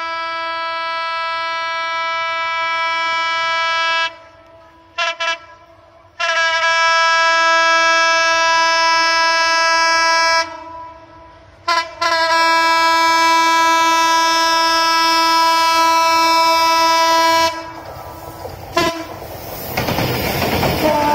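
Horn of EMD diesel locomotive 6632 blowing a long sequence as the train approaches. A blast of about four seconds is followed by two quick toots, another long blast, a short toot, a long blast of about five seconds and a final short toot. Near the end the rushing rumble of the locomotive and passenger coaches passing close takes over.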